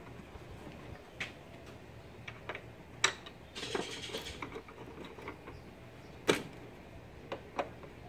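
Screws and a screwdriver being handled on a plasma cutter's sheet-metal case, making scattered clicks and taps as the screws are set in to close the lid. Two sharp clicks stand out, one about three seconds in and another a little past six seconds, with a brief scraping rasp just after the first.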